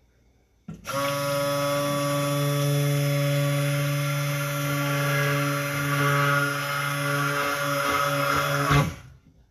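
Electric stick blender running steadily in a pitcher of thickened cold-process soap batter, mixing in the fragrance. It starts about a second in and cuts off shortly before the end.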